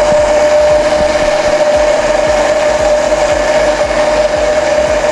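Hand-held immersion blender running steadily with a constant motor whine, its blade held at the bottom of a plastic beaker, emulsifying oil into homemade garlic mayonnaise.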